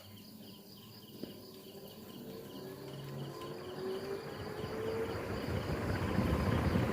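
A 1999 Crompton Greaves 48-inch high-speed ceiling fan starting up from rest: a motor hum rising slowly in pitch and a rush of air growing steadily louder as the blades spin up toward full speed. Crickets chirp faintly in the background.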